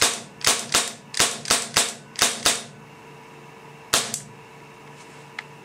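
WG Wingun P230 Phantom CO2 airsoft pistol being fired with half-cycling slide blowback: a quick string of about eight sharp cracks in two and a half seconds, then two more about four seconds in.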